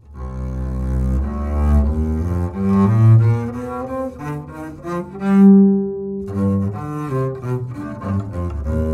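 Double bass played with the bow, strung with Markbass Contra Series strings (nylon core, flatwound nylon winding). It plays a phrase of changing notes, with one longer held note about halfway through.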